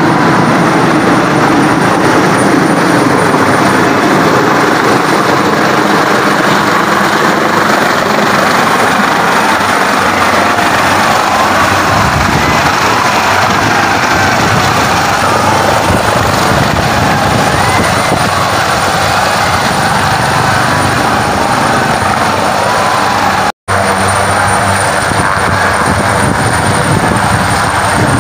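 Helicopter flying low overhead and coming in to land, its rotor and engines making a loud, steady noise. The sound cuts out completely for a split second near the end.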